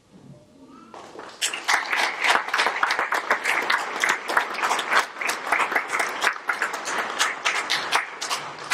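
Audience applauding, starting about a second in and stopping near the end, with many individual claps standing out.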